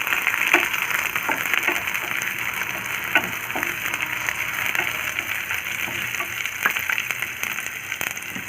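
Onions and green chillies frying in hot oil in a pan, a steady sizzle. Irregular sharp taps and scrapes of a ladle stirring against the pan come about once or twice a second.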